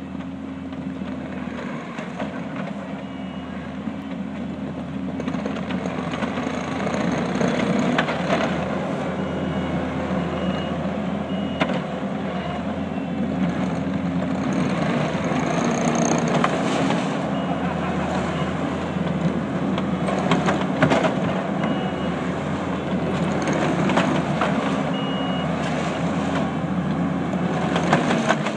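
Kubota SVL75 compact track loader running steadily under load as it drives up on its rear tracks over gravel, its rubber tracks crunching and clattering on the stones. The machine grows louder over the first several seconds as it comes closer, and short backup-alarm beeps sound now and then.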